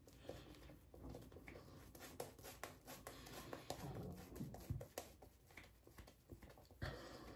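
Boar-bristle shaving brush being worked over a lathered face: faint soft swishing and rubbing with many small irregular clicks and crackles from the lather, one sharper click a little before the end.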